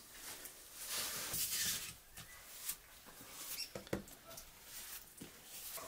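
Hands scattering and spreading flour over a wooden kneading board make a soft, dry rustling, loudest about a second in. This is followed by a couple of light knocks as an aluminium pot of bread dough is lifted and tipped over the board.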